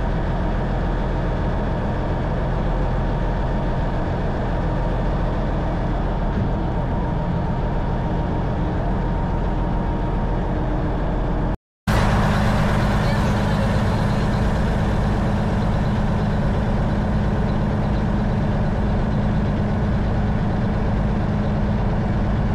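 Faluwa boat's engine running steadily. There is a split-second gap just before the halfway point, after which the engine is slightly louder with a stronger low hum.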